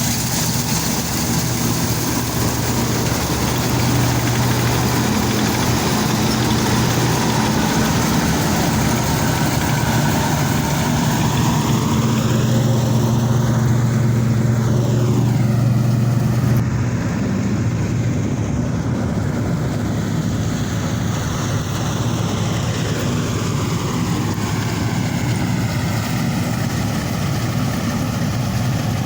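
Combine harvester's diesel engine running steadily with a deep hum, its tone swishing and shifting around the middle as the machine moves past.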